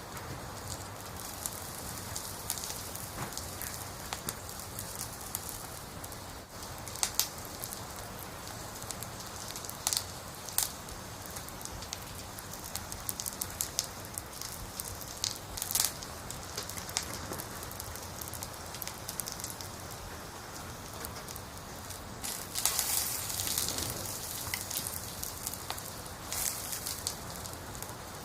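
Wood logs burning in a campfire, crackling with a steady hiss and scattered sharp pops. About three-quarters of the way through, the hiss swells for a second or two.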